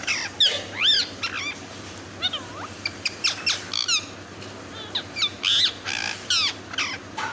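Pet parrot calling in a rapid string of short, high screeches that glide up and down in pitch.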